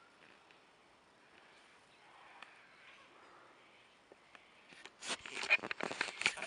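Quiet outdoor background at first, then, about five seconds in, a run of loud rustling and knocking as the Nikon D3100 is handled and swung round, picked up by its built-in microphone.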